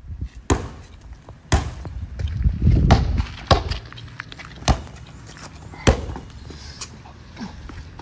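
Sharp thuds of a ball being played hard on a paved courtyard, about one a second, with a louder low rumble about three seconds in.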